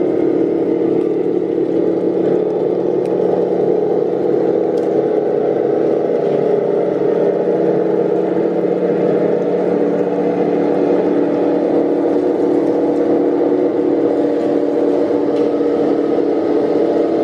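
Running sound of a 1/16 Tamiya Centurion radio-controlled tank: the Full Option kit's simulated engine sound from its loudspeaker, with the whir of the electric drive. It runs steadily throughout.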